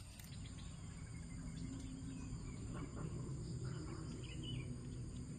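Outdoor forest ambience: a steady low rumble with a faint insect drone and a few brief bird chirps near the middle.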